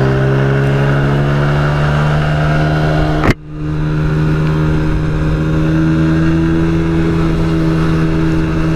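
50cc scooter engine running steadily under way, its pitch shifting only slightly. A sharp click and a brief drop in the sound come a little over three seconds in, then the same engine drone carries on.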